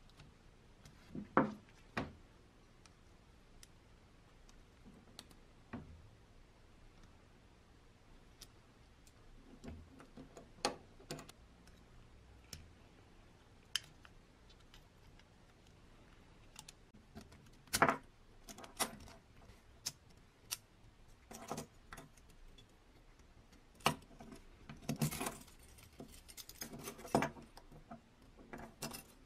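Small rusty metal plates and gears of a toy boat's motor clicking and clinking as they are worked apart with pliers: scattered sharp taps a second or several apart, with a quicker run of clicks near the end.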